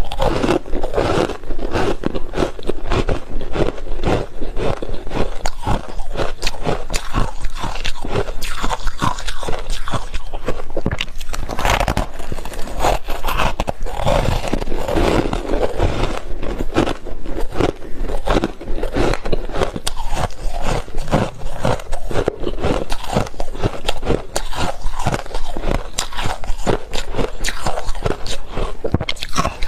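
Close-miked chewing of soft freezer frost: a dense, continuous run of soft crunches and crackles with no pauses.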